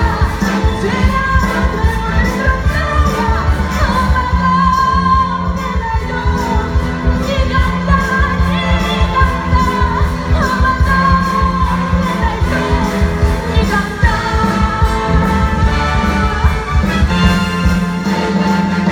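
Live band playing an upbeat pop tune: a steady drum beat and bass under a wavering lead melody, with no sung words.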